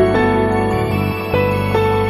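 Background music: a slow melody of held notes over sustained chords, changing note about every half second.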